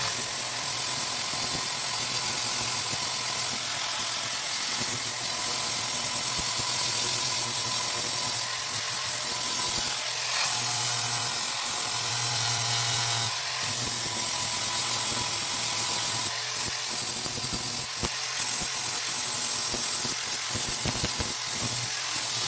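DeWalt angle grinder running under load, grinding rust off an old steel sledgehammer head, a steady loud grinding broken by a few brief dips as the tool eases off the metal.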